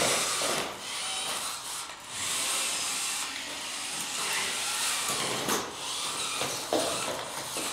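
Electric gear motors of several FTC competition robots whirring as the robots drive and lift their arms, a steady motor noise with a brief dip about two seconds in.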